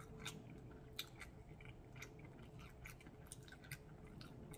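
Faint close-miked chewing of a mouthful of food: soft, scattered wet mouth clicks, over a faint steady hum.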